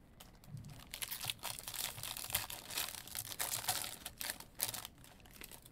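Foil wrapper of a Topps Series 1 jumbo baseball card pack being torn open and crinkled by hand, a dense crackle that fades out near the end.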